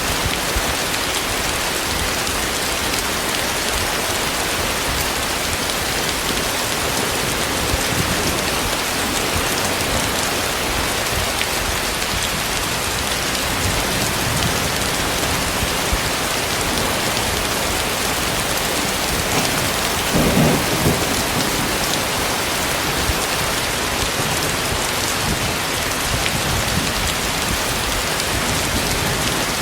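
Heavy rain falling steadily and densely, with one brief, louder clap of thunder about two-thirds of the way through.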